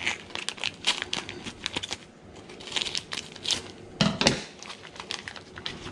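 Scissors snipping open a plastic bag of bait clams, with the plastic crackling and crinkling in irregular clicks as it is cut and handled. A louder thump about four seconds in.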